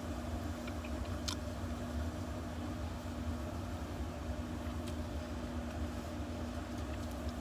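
Steady low hum with a faint constant tone and a few light clicks.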